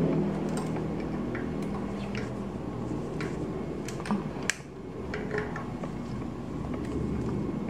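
Scattered light metallic clicks and taps of bicycle parts and tools being handled during assembly, the sharpest two about four and a half seconds in, over a low steady background hum.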